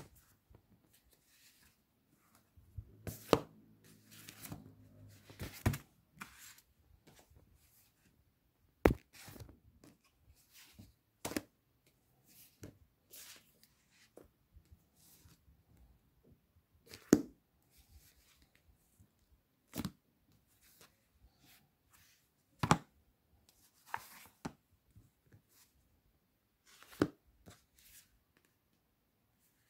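Books and printed catalogues being handled and leafed through by hand: soft paper rustling, with a sharp slap or knock every few seconds as pages and covers are flipped over and set down.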